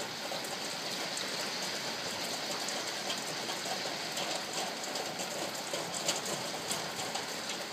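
Rain falling on a tin roof: a steady hiss with a dense, irregular patter of drops ticking on the metal.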